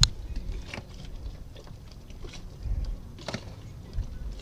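A few faint clicks and taps as the start button on a sailboat's engine control panel is pressed, over a low background rumble. The diesel does not crank, because the panel has no power, which the skipper puts down to a switched-off fuse.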